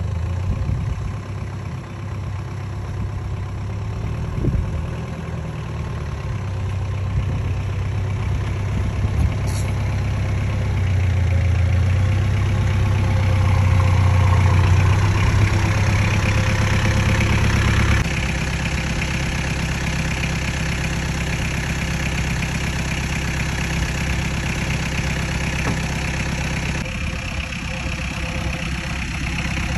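Jeep Willys engine idling with a steady low exhaust note. The sound changes abruptly about eighteen seconds in.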